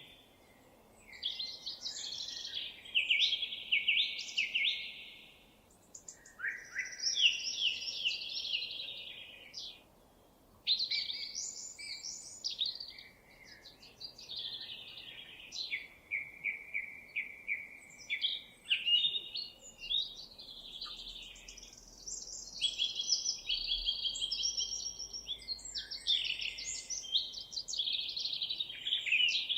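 Songbirds singing: long, fast, warbling phrases follow one after another, broken by a few short pauses.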